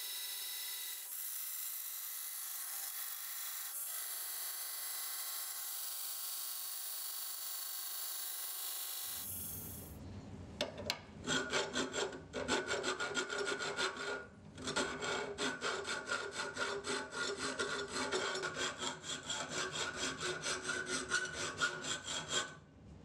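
A belt sander grinding the profile of a 1084 high-carbon steel knife blank, a steady high hiss that stops about nine or ten seconds in. Then a hand file rasping along the steel blade's edge in quick repeated strokes, with a short pause partway through.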